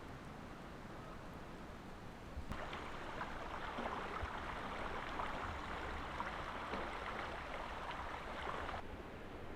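Running river water, a steady hiss with small splashy ticks. It gets louder abruptly about two and a half seconds in and drops back abruptly near the end.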